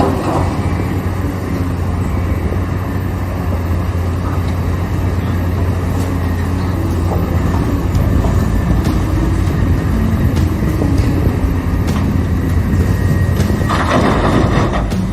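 Large hydraulic excavator's diesel engine running steadily under load, with a low hum throughout. Near the end there is a short burst of hiss.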